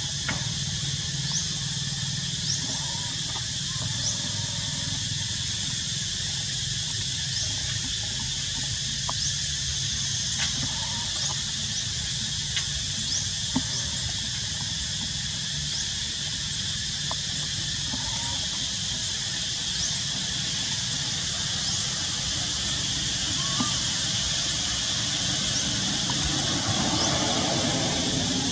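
Steady outdoor ambience in the trees: an even, high insect drone with a low rumble beneath it, and a few faint short chirps here and there.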